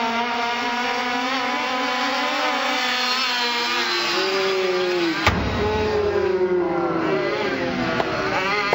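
Traxxas Rustler VXL RC truck's brushless electric motor whining at speed, in slowed-down audio: a drawn-out stack of tones that holds steady, then glides up and down. A sharp knock comes about five seconds in.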